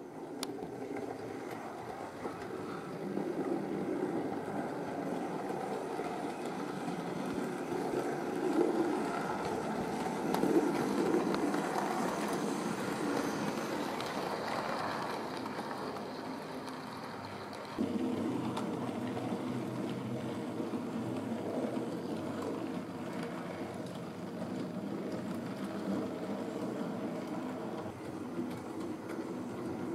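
Model train running along the track: the locomotive's electric motor humming and its wheels and wagons rolling over the rails, with a sudden step up in loudness about 18 seconds in.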